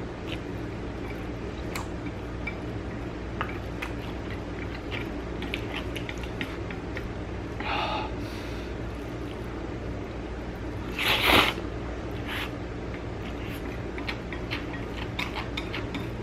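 Close-miked eating: a man chewing chewy spicy noodles, with small wet mouth clicks throughout and one loud slurp of noodles about eleven seconds in, over a steady low hum.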